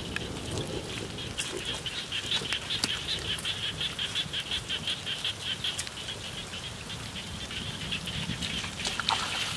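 Frogs calling in a steady chorus of rapid, evenly spaced high-pitched pulses, over a low rumble.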